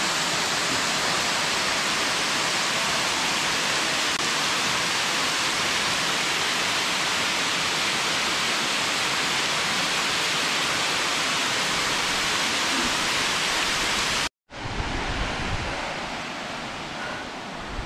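Waterfall rushing, a steady, full hiss of falling water. About fourteen seconds in, the sound cuts out for an instant and comes back quieter, with wind buffeting the microphone.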